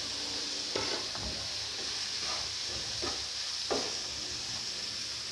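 Chopped onions and freshly added ground spices sizzling steadily in hot oil in a frying pan while a wooden spatula stirs them, scraping the pan a few times. This is the frying of the spice masala for a potato samosa filling.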